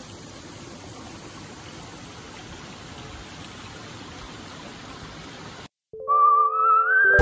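Steady rush of a mountain stream. It cuts off near the end, and music starts with a wavering, gliding lead tone like a theremin.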